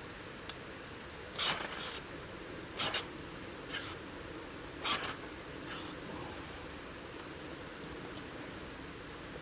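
About five short scraping handling sounds from cooking preparation, the longest near 1.5 s in and the loudest near 5 s, over a steady background hiss.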